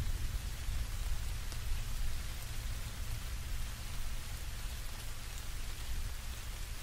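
Steady rain and wind noise picked up while riding a motorcycle in the wet: an even hiss over a low rumble, with a few faint drop ticks.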